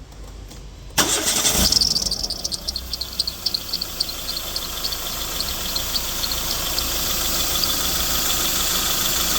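Renault Sandero Stepway 1.6 8-valve engine cranked and started about a second in, then running, with a run of short high chirps from the accessory drive that thin out over several seconds above a steady, slowly rising running noise. The noise comes from the accessory belt running off-line on a misaligned automatic tensioner pulley.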